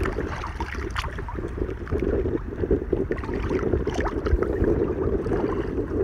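Wind buffeting the microphone while choppy lake water laps and slaps against a kayak hull, with short, irregular splashes.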